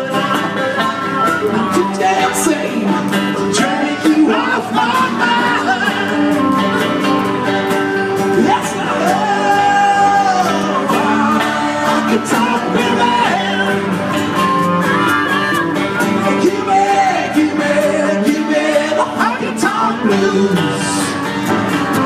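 Band playing a country-style song live, with plucked guitars and singing.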